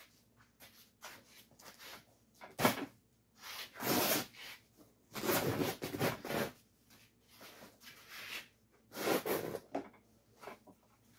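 Old burlap covering and cotton stuffing being pulled and torn off a bench seat's spring frame: irregular rasping rips and rustles, in several bursts.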